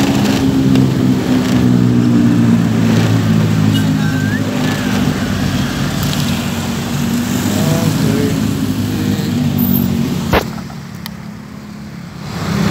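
Engine running steadily close by, a low even hum, with voices in the background. A sharp click comes about ten seconds in, and the engine sound drops away for about two seconds before it returns.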